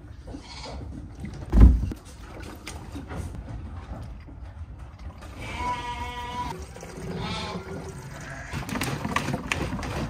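A sheep bleats: one long call about halfway through, then a shorter one just after. A single heavy thump, the loudest sound, comes about a second and a half in.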